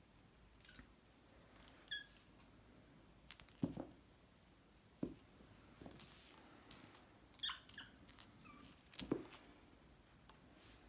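Soft scattered thumps and light clicking and jingling as kittens pounce and bat at a pompom toy, with a few brief high chirps in between; the loudest thumps come about three and a half and nine seconds in.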